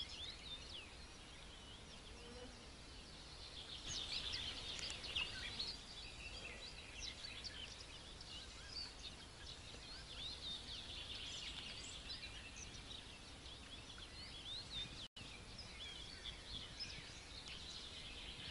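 Faint chorus of many small birds chirping and singing, denser from about four seconds in, over a faint low rumble. The sound drops out for an instant about fifteen seconds in.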